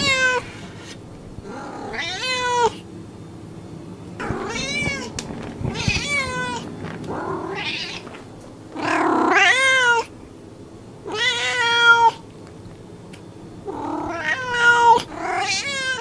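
Domestic cats meowing: a series of about eight drawn-out meows, each rising and then falling in pitch, coming roughly every two seconds.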